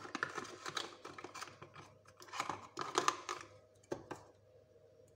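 Small plastic clicks and rustles of a bottle and its dropper being handled and opened, in several short bunches, loudest about two and a half to three seconds in, with one sharp click near four seconds in.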